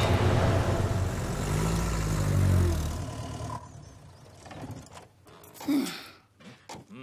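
A small truck's engine running as it drives past, its note rising and falling, then dying away about three seconds in. A short, brief sound follows shortly before the end.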